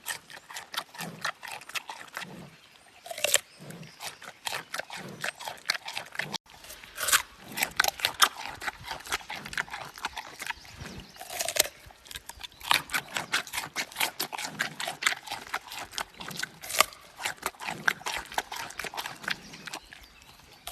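Giant panda chewing bamboo: rapid, crisp cracks and crunches of the stalks splintering between its teeth, over a slower series of low chewing thuds. The sound breaks off for an instant about six seconds in.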